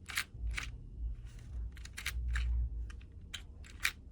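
Small sharp plastic clicks and taps as an aftermarket replacement thumbstick is pressed onto a SCUF controller's stick post, with low handling rumble in the middle. The stick will not seat properly.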